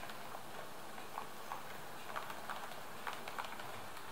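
Rivarossi Hornby ETR 401 Pendolino model train running along the track, its wheels clicking irregularly a few times a second over rail joints, against a steady hiss.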